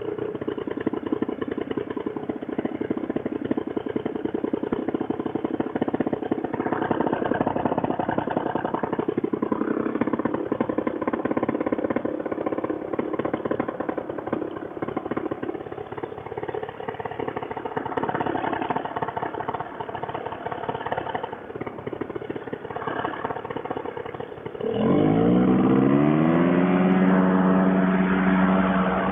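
Fresh Breeze Monster two-stroke paramotor engine running at low throttle, then about 25 seconds in the throttle opens and the engine revs up quickly to a loud, steady full-power drone.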